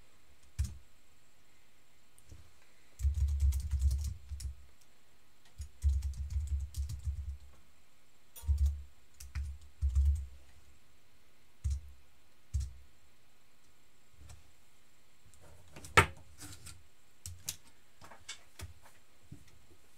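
Typing on a computer keyboard in irregular spurts, the keystrokes coming through as low thuds with faint clicks, and a single sharper click about sixteen seconds in.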